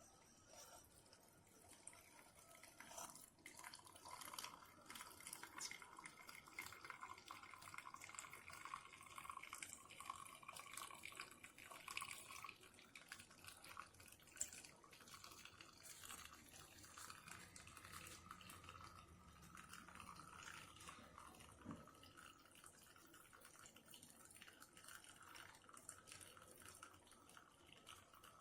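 Keurig K-Express single-serve coffee maker brewing, faint: coffee trickling and dripping into a mug in irregular spatters over a faint steady whine.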